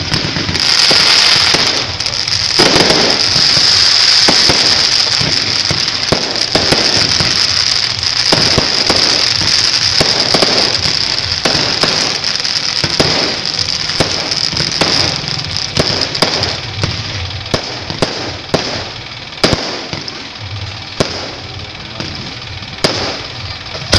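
Aerial fireworks bursting overhead in a dense, continuous crackle with a steady hiss. Past the middle the crackle thins into separate sharp bangs, a second or so apart.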